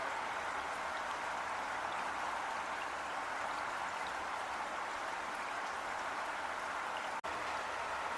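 Heavy rain falling steadily: a dense, even hiss of drops with faint scattered patters on top. A split-second dropout about seven seconds in briefly cuts the sound.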